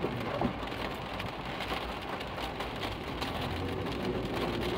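Rain falling on a moving car's windshield and roof, heard from inside the cabin as a steady hiss with fine patter, over the car's low road rumble.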